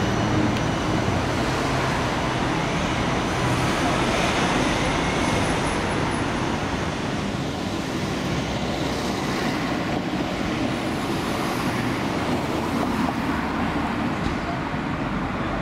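Steady city street traffic noise of trams and road vehicles, with no single event standing out. The sound shifts about halfway through.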